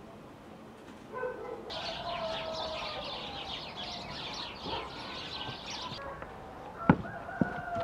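Small birds chattering in a dense, fast chorus from about two seconds in until six, over lower calls of chickens. Near the end a rooster starts to crow and a few sharp knocks sound.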